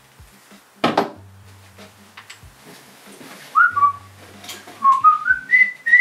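A person whistling a short tune from about halfway through. The notes dip, then step upward in pitch. There is a brief noise about a second in.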